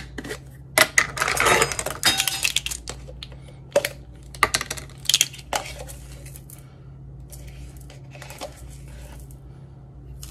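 Measuring spoons and small containers clinking and rattling while red pepper flakes are measured out: a dense rattle for about two seconds, then four sharp separate clinks and a few fainter ones, over a steady low hum.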